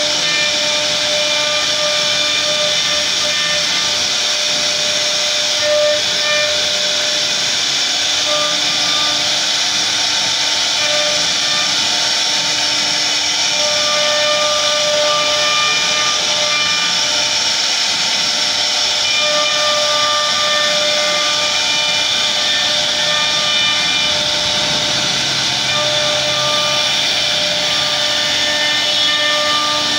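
1325 CNC router's spindle whining steadily as its bit carves a relief pattern into a wooden door panel, with a hiss of cutting. Several pitched tones in the whine fade in and out as the bit works through the wood.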